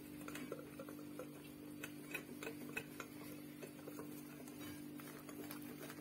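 Wire whisk stirring flour into cake batter in a glass bowl, its wires clicking faintly and irregularly against the glass, a few taps a second, over a steady low hum.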